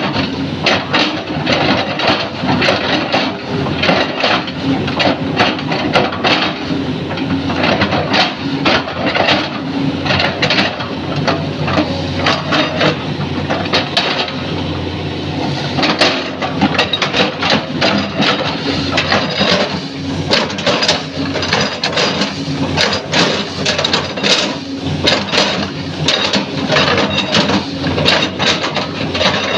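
Hydraulic excavator running steadily while its narrow chipping bucket chops a felled oil palm trunk: a rapid, irregular string of woody knocks and cracks as the blade bites into the fibrous trunk, easing off for a few seconds around the middle.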